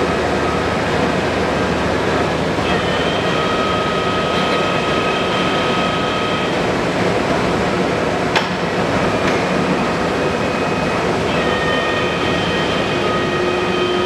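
Leblond NK 36 x 132 engine lathe running with a steady mechanical din. High whining tones come in about three seconds in, drop out a few seconds later and return near the end, and there is one sharp click a little after eight seconds.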